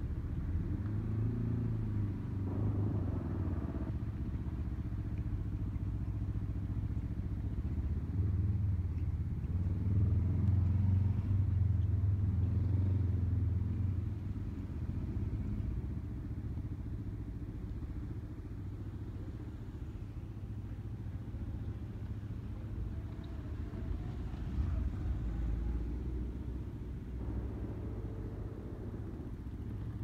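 Low, steady rumble of vehicles, growing louder for a few seconds in the middle and then easing off.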